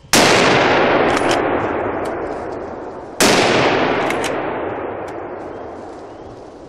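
Two rifle shots about three seconds apart, each followed by a long rolling echo that slowly fades away.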